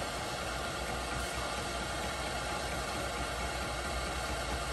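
Small homemade two-piston hot-air (Stirling-type) heat engine running steadily with its flywheel spinning fast, giving an even whirring hiss.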